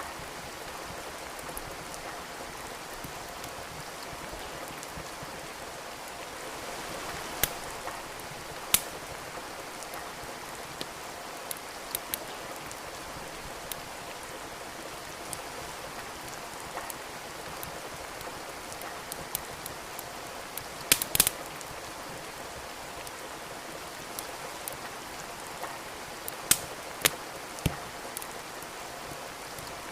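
Steady rain with a wood fire crackling over it: scattered sharp pops, the loudest a quick cluster about two-thirds of the way through and a few more near the end.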